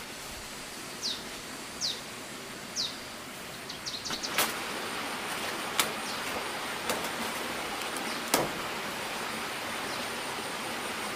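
Steady background hiss with three short, falling high chirps in the first three seconds, then a run of quick clicks and a series of sharp, spaced knocks, the loudest two about six and eight seconds in.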